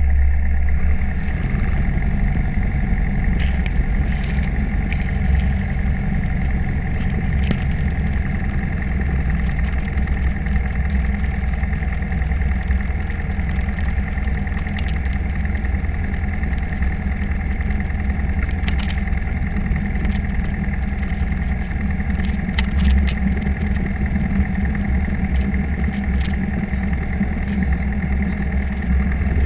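Piper PA-28 Cherokee's piston engine and propeller running steadily at low power while the aircraft taxis after landing, a constant low drone heard inside the cabin, with a few faint clicks.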